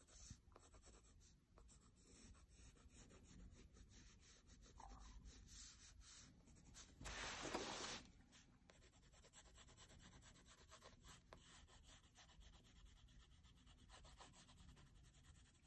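Faint scratching of a black watercolor pencil, used on its side, shading on sketchbook paper. About seven seconds in there is a louder rustle of about a second as the sketchbook is slid round on the wooden table.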